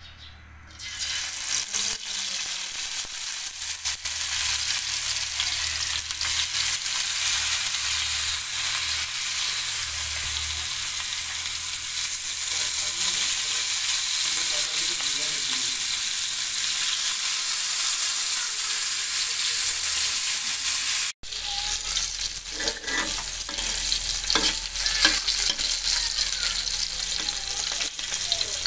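Hilsa fish steaks frying in hot oil in an iron karahi: a steady sizzle that starts about a second in. It cuts out for an instant about two-thirds through, then carries on with scattered taps on the pan.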